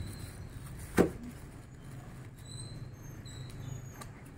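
Plastic bubble-wrap packaging rustling as it is handled and cut open with scissors, with one sharp knock about a second in. Faint high chirps are heard in the later half.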